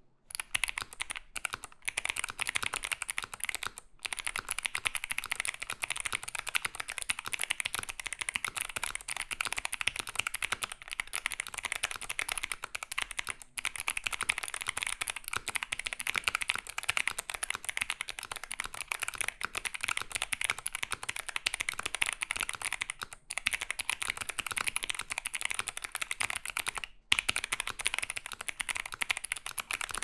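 Fast, continuous typing on a clicky mechanical keyboard: Kailh Box Navy and Cherry MX Blue switches in a Mr. Suit board packed with case foam, plate foam, PE foam and tape, giving a smooth, creamy click rather than a thock. The keystrokes run together densely, broken by a few short pauses.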